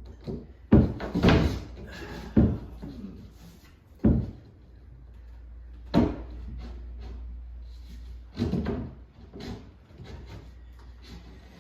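Spotted gum backboard being knocked and shoved into a bookshelf carcass: irregular wooden knocks and thumps, about half a dozen, the sharpest about six seconds in, as the snug-fitting panel sticks partway in.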